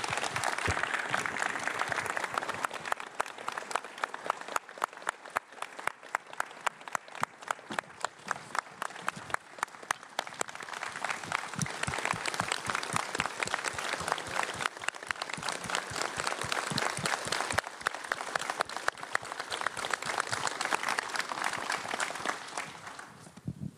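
A crowd applauding at the end of a speech. For several seconds in the middle the clapping falls into an even, rhythmic beat, then it goes back to ordinary applause and dies away near the end.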